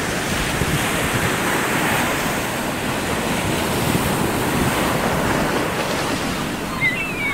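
Ocean surf breaking and washing up a sandy beach, with wind buffeting the microphone. A couple of brief high chirps near the end.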